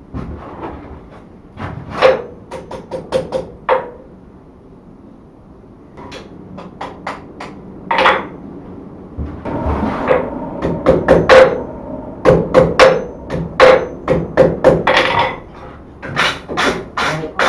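Blacksmith's hand hammer striking on the anvil in runs of quick blows, each with a ringing note from the anvil. The blows fall on a bundle of four steel rods, first evening up its end, then working it hot at welding heat to set the forge weld.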